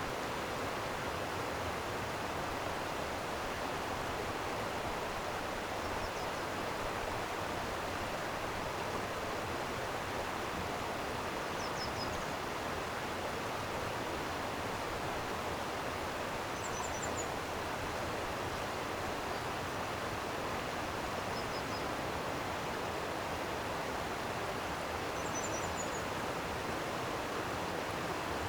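Flowing stream water rushing steadily. Small birds give faint, short, high chirps a few times.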